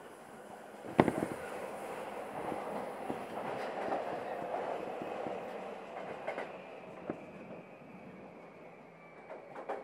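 Running sound of a JR East E235-0 series electric commuter train heard on board, slowing as it comes into a station: rolling wheel-on-rail noise with a sharp knock about a second in, fading away over the last few seconds, with a few clicks near the end.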